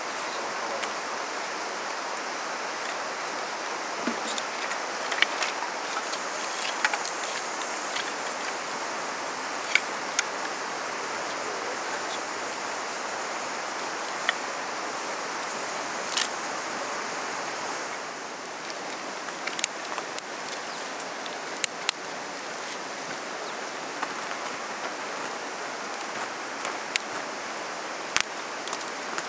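Steady rushing of flowing stream water, with scattered sharp clicks and crackles throughout.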